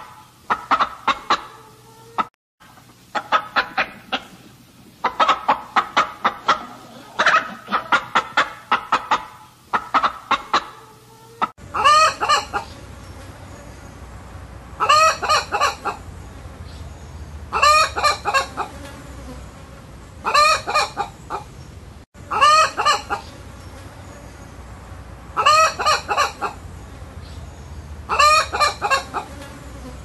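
Chickens clucking: runs of quick clucks at first, then, after a cut about twelve seconds in, a short call of a few pitched notes repeated about every two and a half seconds over a low hum.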